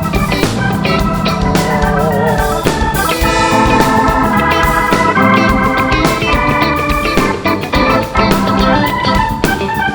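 Live band playing an instrumental passage: electric organ chords over guitar and a steady drum beat, with no vocals.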